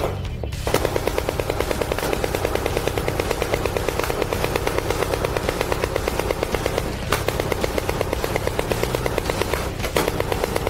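Deck-mounted machine guns on a warship firing long bursts of rapid automatic fire out to sea during a live-fire drill, with two brief breaks between bursts.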